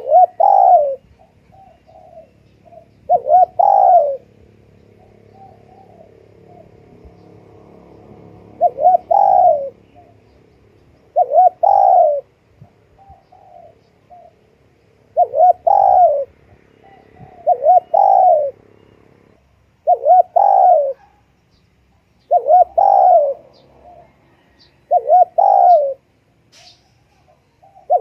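Spotted dove cooing, its phrase repeated about every two seconds: a couple of short notes leading into a longer, louder falling coo. Faint short chirps sound between the phrases.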